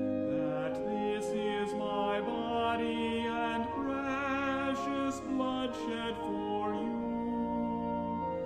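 A song sung with vibrato, moving from note to note over held instrumental accompaniment.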